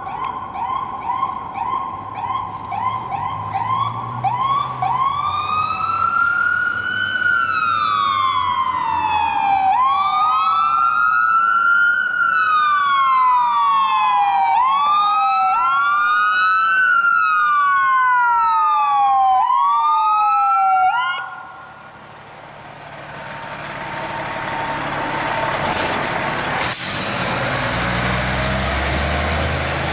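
Electronic sirens on fire engines responding: a fast yelp, then two slow wails rising and falling out of step with each other. About 21 seconds in the sirens cut off suddenly. The heavy diesel engine of a fire truck then rumbles louder as the ladder truck drives close past.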